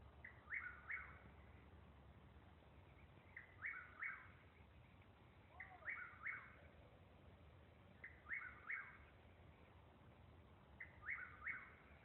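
Chuck-will's-widow singing its repeated three-note 'chuck-will's-widow' phrase, five times about two and a half seconds apart.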